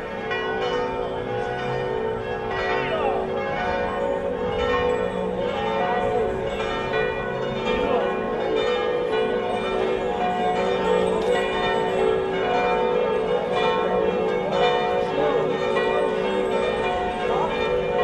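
Church bells ringing continuously, a dense, steady peal of overlapping tones, with a crowd's voices faint beneath.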